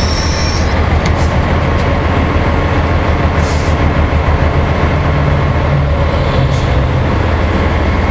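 Heavy-duty tow truck's diesel engine running steadily with a loud low drone. Two brief hisses come about three and a half and six and a half seconds in.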